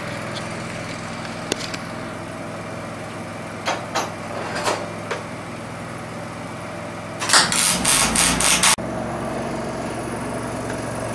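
MIG welder laying a single tack weld of about a second and a half, a dense crackle of the arc joining a steel hardy stem to its base plate. Before it come a few light clicks of parts being handled, over a steady background hum.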